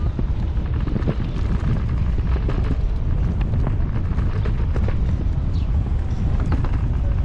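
Wind buffeting a GoPro action camera's microphone: a steady low rumble, with scattered light knocks.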